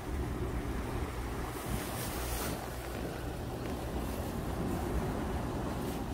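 Wind buffeting the microphone with a steady low rumble, over sea waves washing against the rocks below. A brief louder hiss comes about two seconds in.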